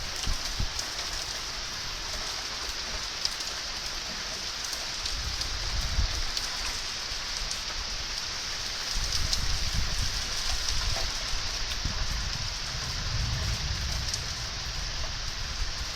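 Steady rain falling, an even hiss, with a few low rumbles swelling and fading several times.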